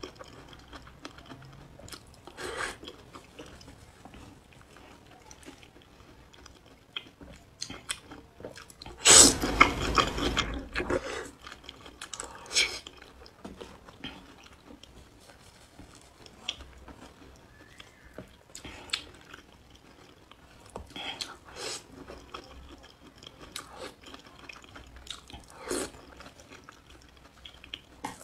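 Close-up mouth sounds of a person eating green chili peppers in chili oil: wet chewing and smacking with scattered small clicks. About nine seconds in comes one much louder, noisy burst lasting about two seconds.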